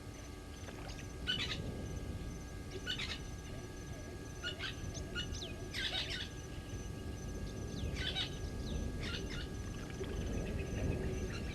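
Wild birds calling at a waterhole: short bursts of quick chirps and falling whistles, about six bursts spaced a second or two apart, over a low steady background rumble.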